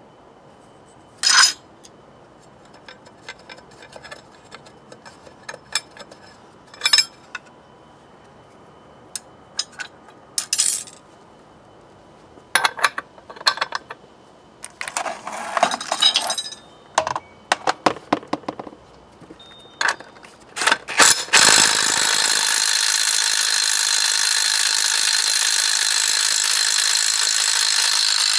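Loose metal clutch parts clinking and knocking as they are handled, a few scattered clicks at first, then a busier run of clinks. About three-quarters of the way in, a cordless DeWalt power driver starts and runs steadily on the centre bolt of a BMW K75 motorcycle's clutch housing.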